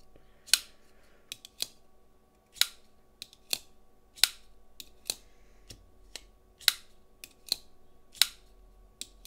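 A new crossbar-lock folding knife being flicked open and shut again and again, the blade snapping out and the lock clicking, about one loud snap a second with fainter clicks between. The action is still stiff and is being broken in.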